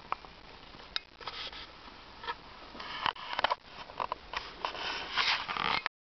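Close handling noise: scattered sharp clicks and short rustling scrapes, getting busier about halfway through and stopping abruptly.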